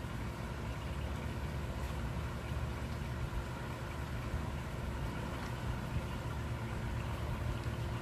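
Steady low mechanical drone with a faint steady hum tone, like a motor running, even throughout.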